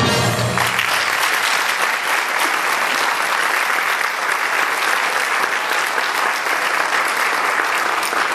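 Theater audience applauding steadily, just after a musical number ends; the orchestra's last held chord fades out in the first half second.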